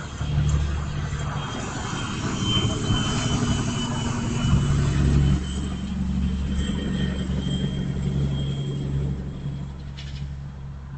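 A motor vehicle's engine running close to the microphone: a steady low rumble that swells about halfway through, with a faint steady high whine over it.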